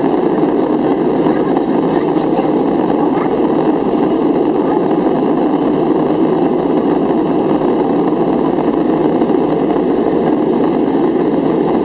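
Steady cabin noise inside a Boeing 737-400 climbing after take-off: the even rush of its CFM56 engines and airflow, unchanging throughout.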